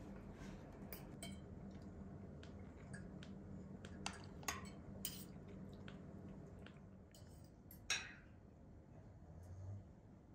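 Metal spoons and forks clinking and scraping on china plates during a meal: scattered light clinks, one louder clink about eight seconds in, over a steady low hum.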